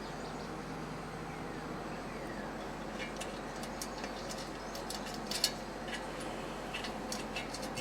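Scattered light clicks and taps, the most distinct about five and a half seconds in, over a steady low background hum.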